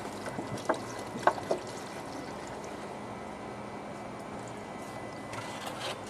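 Water poured from a plastic jug into a freezer's condensate drain pan to test the condensate pump, with a few short, sharp knocks or splashes about a second in over a steady hum.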